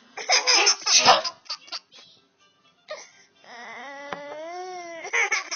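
A person sneezes loudly about a second in, followed by a few short bursts of a baby's laughter. Then comes a long drawn-out 'ahhh' that rises and falls, the wind-up to a second sneeze just before the end.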